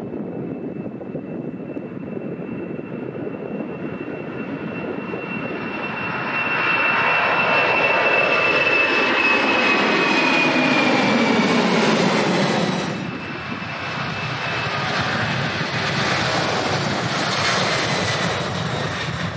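Boeing 747 jet engines at takeoff thrust passing by: a broad roar with a high fan whine, the pitch sliding down as the aircraft goes past at its loudest. About two-thirds through the sound drops abruptly, and another jet roar builds again.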